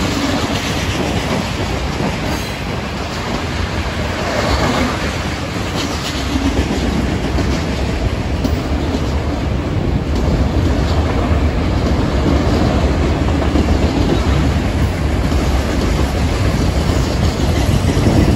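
Freight train cars, mostly autoracks, rolling past close by: a steady rumble with the clatter of wheels on rail, growing a little louder toward the end.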